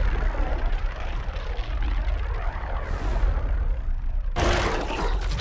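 Mechagodzilla sound effect: a deep mechanical rumble with a sweeping, jet-like phasing hiss over it. A brighter, harsher sound cuts in abruptly about four seconds in.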